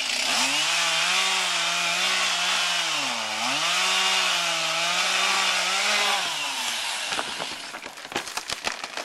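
Chainsaw cutting through a tree, its engine pitch wavering under load and dipping about three seconds in as it bogs in the cut, then stopping about six seconds in. A run of sharp, irregular cracks and snaps of breaking wood follows near the end.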